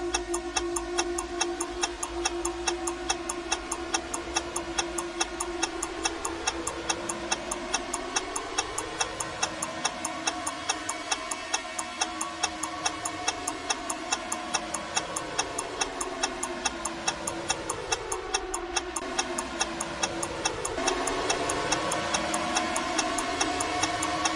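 Countdown timer sound effect: quick, even clock-like ticks, several a second, over a humming tone whose pitch sweeps slowly up and down. About 21 seconds in it gets slightly louder.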